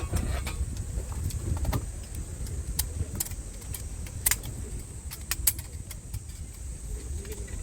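A steady low rumble with scattered sharp clicks and clinks, irregularly spaced, the strongest about four and a half and five and a half seconds in.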